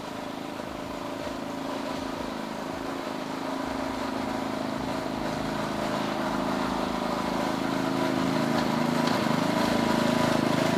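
A 7 1/4 gauge miniature ride-on locomotive running with a steady motor drone, growing steadily louder as it approaches.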